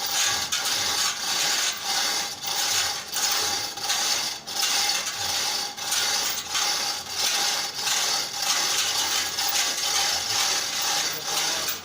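Manual chain hoist being worked by hand, its chain clattering through the block and the ratchet clicking in a steady rhythm of pulls.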